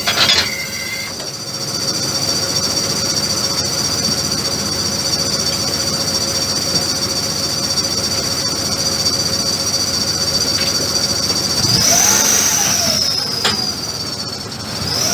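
A power tool running with a steady high-pitched whine over a rough, noisy bed; its pitch rises and falls back briefly about twelve seconds in and again near the end.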